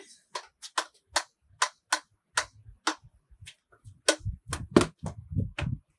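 Field hockey stick tapping a ball in freestyle dribbling: a run of sharp clicks, about two a second, with low thumps joining in over the second half.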